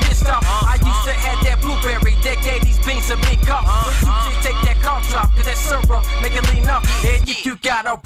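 Hip hop track playing: heavy bass and regular drum hits under a repeating melodic line. The bass drops out a little past seven seconds in.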